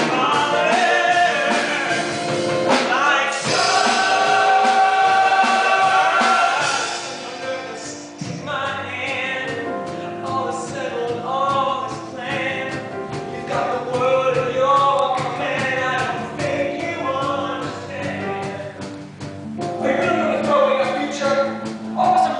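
Male voices singing a musical-theatre number, a soloist with a male chorus over instrumental accompaniment, with a loud held note a few seconds in. The sound is a live performance heard from the audience in a school gym.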